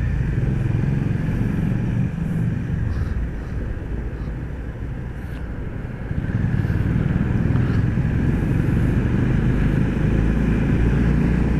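Motorcycle engine running steadily while riding. It gets louder about six seconds in.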